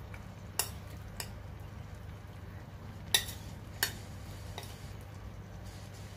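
A metal spoon clinking and scraping against a clay pot as pieces of marinated pork spare rib are pushed into place over the rice: about five sharp clinks, the loudest about three seconds in, over a steady low hum.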